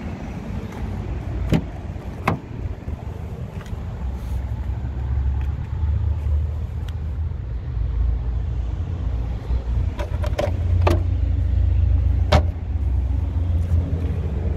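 Wind buffeting the microphone in an uneven low rumble, with a few sharp clicks near the start and a small cluster of clicks and knocks late on.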